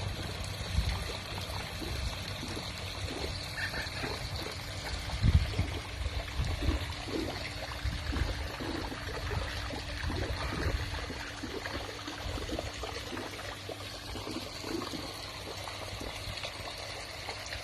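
Swimming-pool water trickling and pouring steadily, with a faint steady hum underneath and scattered soft low thumps.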